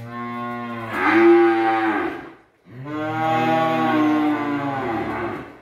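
Cattle mooing: two long, loud moos with a short break about halfway through.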